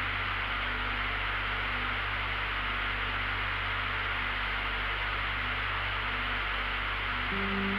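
Steady drone of a light aircraft in level cruise, engine and airflow noise heard from the cockpit, with faint held musical tones that shift near the end.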